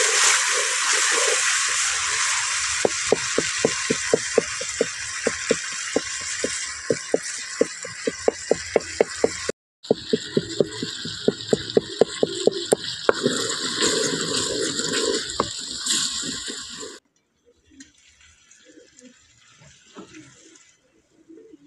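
Curry masala sizzling in hot oil in a metal karahi while a spatula scrapes and knocks around the pan in quick regular strokes, about three a second. Near the end the sizzling cuts off to a much quieter background with faint scattered sounds.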